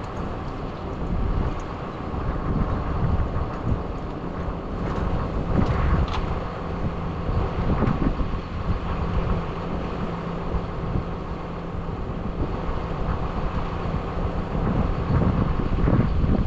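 A farm vehicle's engine running steadily, with wind buffeting the microphone.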